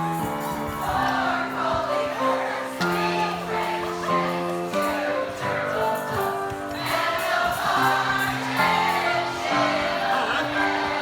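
A group of voices singing a song together over instrumental accompaniment, the held notes changing every second or two.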